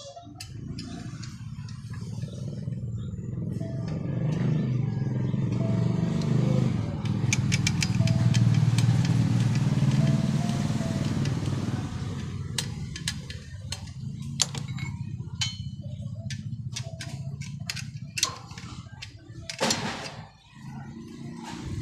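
A motor vehicle passes, its low engine rumble swelling over the first several seconds, peaking about halfway through and then fading. After that come many small sharp metallic clicks and taps as nuts, bolts and the metal bracket of a satellite dish's LNB mount are handled and fitted together.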